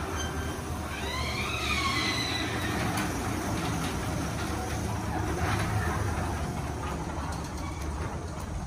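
Sectional garage door being raised by a ceiling-mounted electric opener: a steady mechanical rumble of the motor and the door panels rolling up their tracks, with a short wavering squeal about a second in.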